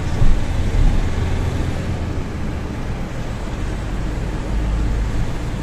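Steady low road rumble of a moving car heard from inside, with tyre and wind noise and a brief bump about a quarter second in.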